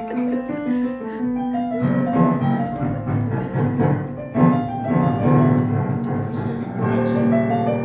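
Piano played by an adult and two small children at once: a jumble of notes and chords rather than a tune. From about two seconds in, thick low clusters of many keys pressed together sound over the higher notes.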